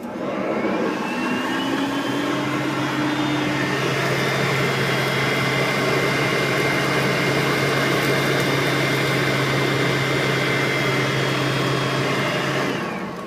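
Hoover vacuum cleaner running on its high setting. It is switched on at the start and its motor spins up with a rising whine over the first couple of seconds, then runs steadily with a hum and a high whine. It is switched off near the end and winds down.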